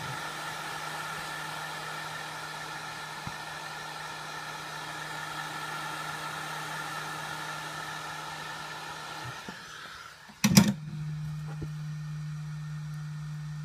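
A handheld hot-air blower running steadily as it heats the phone glass to soften the adhesive, switched off about ten seconds in. A sharp loud knock follows just after, then a low steady hum.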